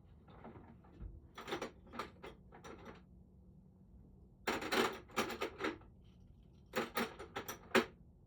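Small metal lock parts and tools clicking and clattering as the lock is worked on by hand, in three short bursts of quick clicks.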